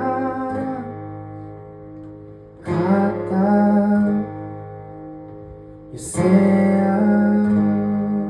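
Guitar strumming single chords about three seconds apart, each chord left to ring out, in the outro of a song.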